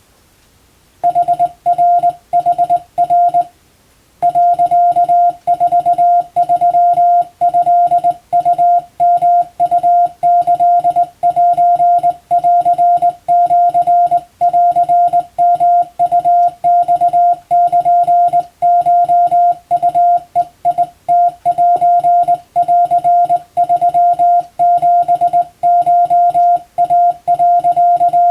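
Hand-keyed Morse code (CW) tone at a single steady pitch, sending dots and dashes of telegram practice text in Japanese wabun code. The keying starts about a second in, pauses briefly, then runs on without a break.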